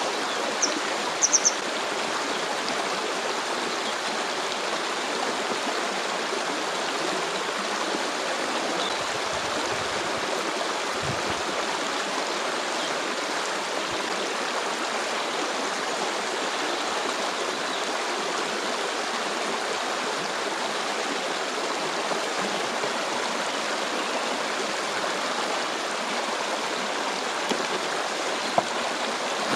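A stream flowing with a steady, even rush of water. A few short high chirps sound about a second in.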